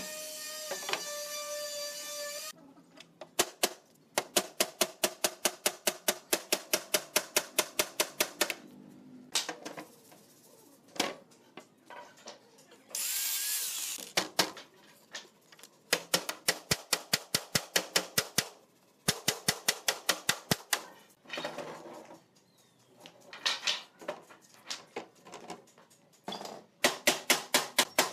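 Rapid hammering on wood, about four to five blows a second in runs of several seconds with short pauses, as the bed frame parts are knocked together. A steady tone sounds for the first couple of seconds, and a short hiss comes about halfway through.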